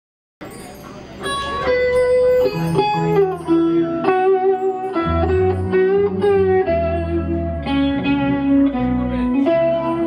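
Live band playing: electric guitar, keyboard, bass and drums. The music comes in suddenly about half a second in, quieter at first, and the full band is playing from just over a second in.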